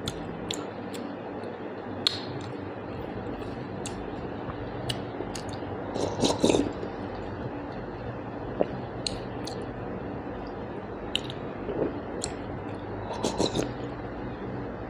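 Close-up eating sounds: chewing and wet squishing of rice and curry, with scattered small clicks. There are louder bursts of squelching about six seconds in and again near the end.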